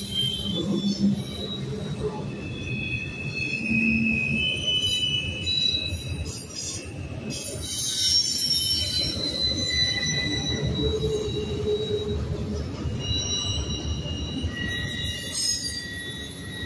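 Double-stack intermodal freight cars rolling past with a steady low rumble of wheels on rail. High-pitched wheel squeals come and go over it, one tone after another.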